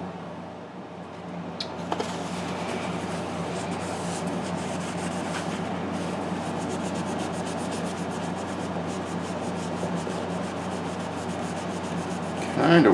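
Steady scrubbing and rubbing on a plastic model part, working off oil paint softened with thinner, over a faint steady low hum. The rubbing picks up about two seconds in.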